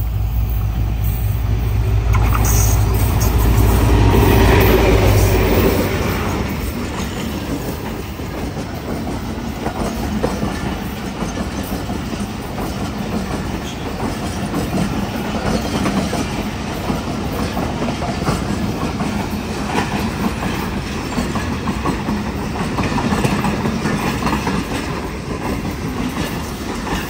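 Pakistan Railways diesel-hauled express passenger train running through a station at speed. The locomotive's engine is loudest in the first six seconds, then the coaches run past with steady wheel-on-rail noise.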